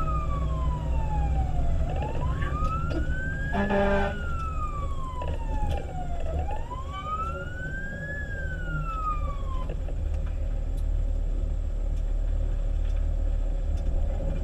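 Fire engine siren wailing, rising and falling slowly about every four and a half seconds, then winding down and stopping about 10 s in, over the steady rumble of the truck's engine. A short horn blast sounds about 4 s in.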